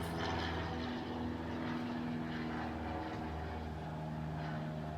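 A steady engine drone with a strong low hum and a slowly wavering pitch.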